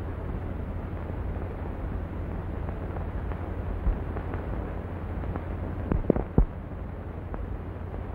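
Steady hiss and low hum of an old optical film soundtrack with no dialogue. Three short knocks cut through it, one about four seconds in and two close together about six seconds in.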